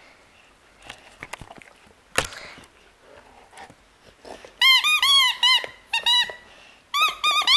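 A dog chewing a spiky rubber squeaky ball: soft chewing clicks at first, then the squeaker gives a quick run of short high squeaks that rise and fall in pitch from about halfway through, and another run near the end.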